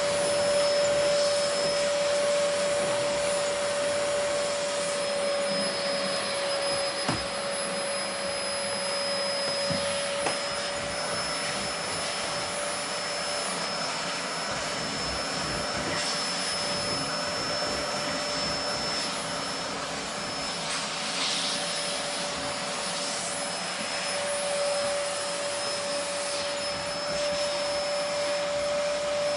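Vacuum cleaner running continuously: an even rush of air with a steady motor whine.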